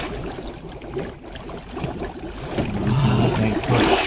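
Hot tub water bubbling and churning around sublimating dry ice, growing louder about two and a half seconds in.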